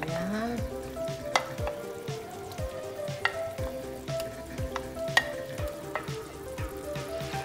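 Wooden spoon scraping chopped tomatoes and mushrooms off a plate into a pan of simmering broth, with a few sharp clicks. Background music with a steady beat plays throughout.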